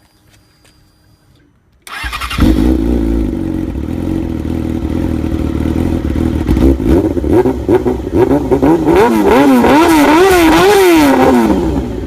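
Yamaha Force 155 scooter's single-cylinder engine starting about two seconds in and idling, then revved in a series of quick throttle blips near the end, its pitch rising and falling with each one.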